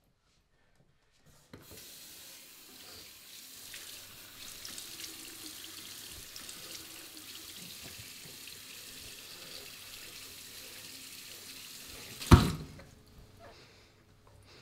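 Bathroom sink tap running steadily after about a second and a half of silence, with small splashes of water being scooped and splashed onto the face. About twelve seconds in comes one sharp, loud hit, the loudest sound, after which the running water is much quieter.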